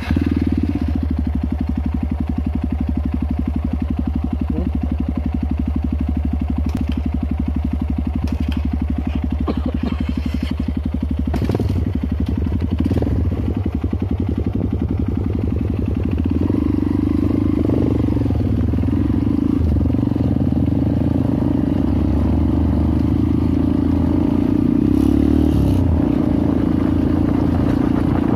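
Trail motorcycle engine running just after starting, first at an even low speed, then at higher revs from about halfway as the bike rides along a dirt track. A few clacks come near the middle.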